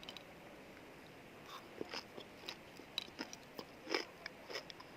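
A person chewing pickled chili peppers close to the microphone, with scattered wet crunches and clicks starting about a second and a half in.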